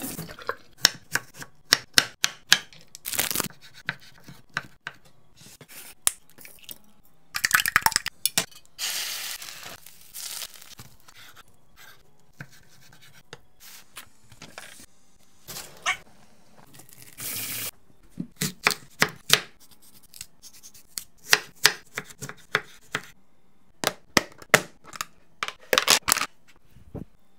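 Hand-made kitchen sounds of food prep: a long string of sharp taps, clicks and knocks from handling packaging and plastic lunchbox containers on a countertop. The clicks are broken by a few short stretches of hissing noise, one about a third of the way in and a briefer one a little past the middle.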